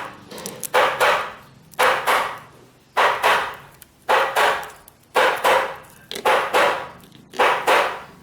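Rhythmic knocking: pairs of sharp strikes on a hard surface, about one pair a second, each dying away quickly.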